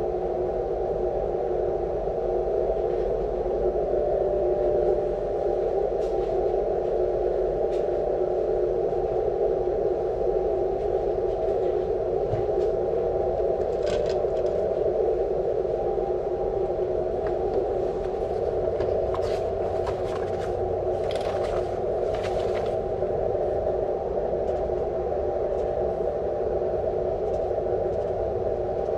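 Steady receiver static from an HF amateur radio transceiver's speaker, a hiss held to a narrow middle pitch band as through a narrow receive filter, while listening on an agreed frequency for a very weak station. A few sharp clicks come in around the middle.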